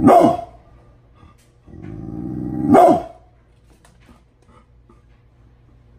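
Brindle pit bull barking once at the start. Then a low growl builds from about two seconds in and ends in a second loud bark about three seconds in.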